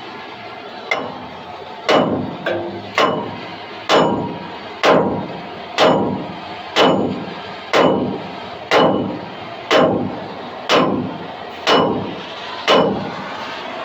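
Hammer striking metal in a steady series of about a dozen blows, roughly one a second, each blow ringing briefly. This is the kind of work done to knock a seized bearing or hub off a trailer wheel spindle.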